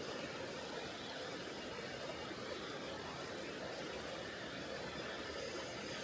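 River water rushing over rocks: a steady, even rush with no distinct splashes or breaks.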